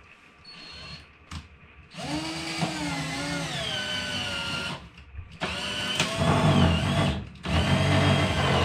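Handheld power drill running in three bursts of a couple of seconds each, drilling up through the top of an over-the-range microwave into the cabinet above; the motor pitch drops in the first burst as the bit comes under load.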